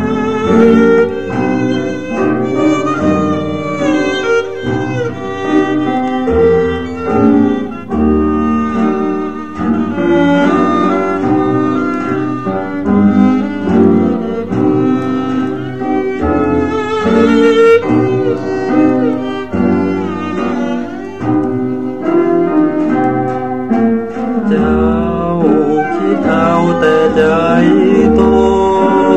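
Instrumental interlude of an old Thai vocal ballad: bowed strings carry the melody over a low bass line. It is played from a mono vinyl LP through a Clement mono cartridge.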